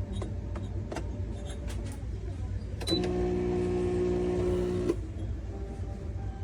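Espresso machine's pump buzzing for about two seconds, starting and cutting off abruptly, over a steady low hum. It is preceded by a few light clicks.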